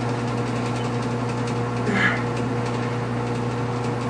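Steady mechanical hum with a low tone and a few higher steady tones above it. A short breath from the man straining through dumbbell curls comes about two seconds in.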